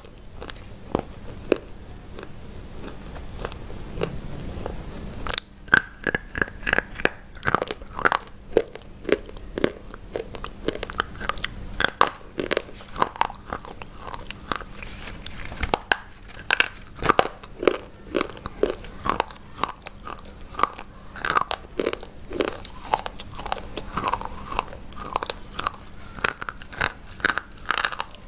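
Close-miked biting and chewing of hard white chalk-like sticks: a few faint crunches at first, then from about five seconds in a dense, steady run of sharp crunches and snaps as the pieces are bitten and chewed.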